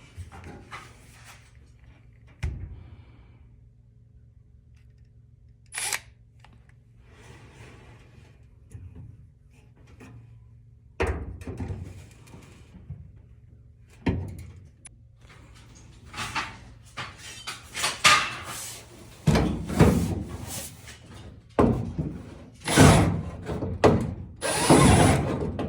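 A power drill runs in repeated short bursts, with knocks and tool-handling clunks between them, over a steady low hum. The bursts come thicker and louder in the second half.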